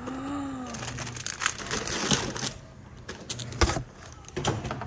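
Packaging crinkling and rustling as a toy box is opened, followed by a few sharp clicks and knocks, one louder than the rest.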